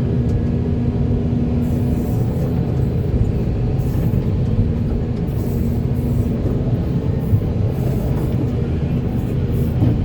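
Diesel engine of a Volvo EC480D crawler excavator running steadily, a continuous low rumble with a faint hum.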